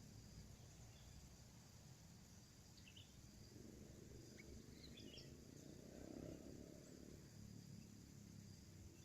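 Near silence with faint outdoor background noise; a handful of faint, short bird chirps come about three to five and a half seconds in.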